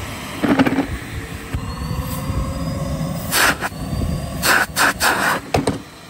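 Numatic Henry 160 vacuum cleaner running, the whine of its motor climbing as it comes up to speed, with a few loud rushing noises midway. It cuts off near the end as it is switched off.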